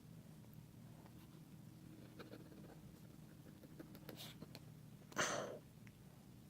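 Faint scratching and small clicks of a tool scraping old adhesive off an iPad Air's frame, with one short breath about five seconds in.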